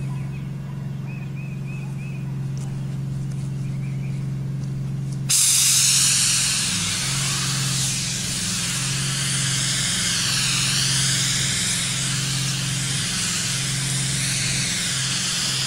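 A steady low machine hum from the spray rig. About five seconds in, a spray gun starts with a sudden loud hiss as white roof coating is sprayed. While the gun sprays, the hum drops out briefly and comes back every second or two.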